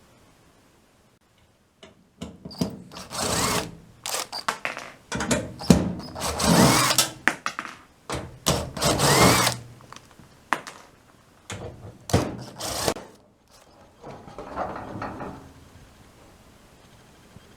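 Power drill-driver run in several short bursts of about a second each, its motor pitch rising and falling, with clicks and knocks between them. This is typical of screws being driven out while a clothes dryer's cabinet is taken apart.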